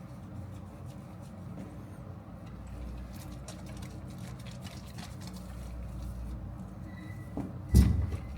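Small splashing and handling noises from a cat being washed in a bubble bath, over a steady low hum, with one sharp knock near the end.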